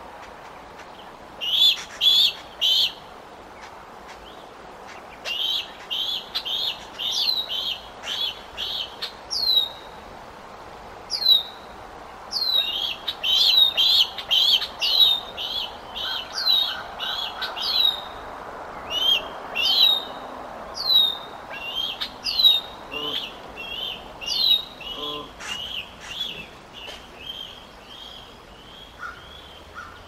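Rapid, repeated high bird calls: short sharp chips and down-slurred whistles, coming in bursts with brief pauses and growing fainter near the end.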